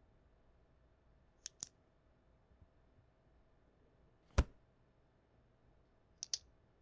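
A quiet room with a few separate sounds: two small clicks about a second and a half in, then one sharp thump on the desk, the loudest sound, just past the middle. Near the end a quick double click as the desk lamp's switch is pressed and the light goes off.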